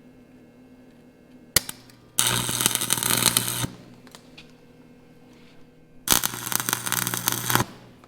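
Stick welder arc: a sharp tap as the rod strikes about a second and a half in, then the arc crackles for about a second and a half, stops, and crackles again for about a second and a half near the end, in short tack-sized welds.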